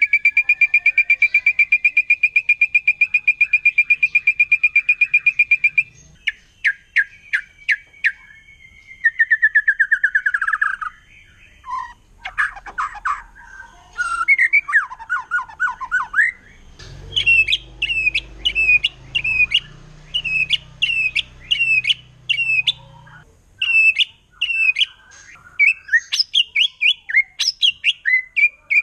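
White-rumped shama singing: a fast, rattling trill of rapid repeated notes for about six seconds, then varied whistled phrases, and in the second half a run of sharp downslurred whistles repeated about twice a second.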